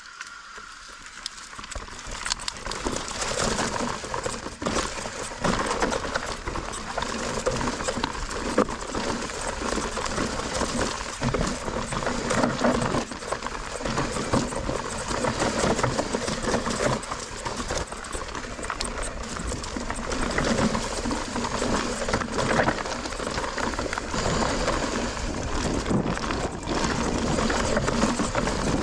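Mountain bike riding over rough, rocky trail: a steady rush of tyre and wind noise with frequent knocks and rattles as the bike clatters over the rocks, building up over the first couple of seconds.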